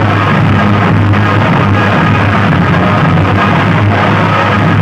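Very loud music blaring from a DJ sound rig's wall of horn loudspeakers, with a heavy, steady bass under a dense wash of sound.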